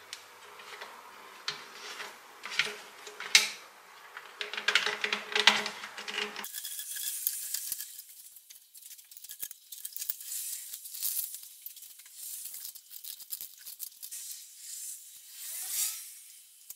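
Handling and fitting of a corrugated rubber air-intake hose onto the engine: irregular rustling, clicks and scraping of rubber against the metal fittings, with a few short squeaks near the end as the hose is worked onto its outlet. A steady low background hum cuts out abruptly about six seconds in.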